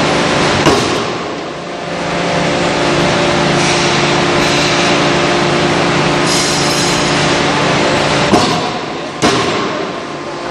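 Anyang 5-ton closed-die forging hammer striking a red-hot workpiece: three heavy blows, one about a second in and two close together near the end. A constant loud machine drone with a steady hum runs underneath.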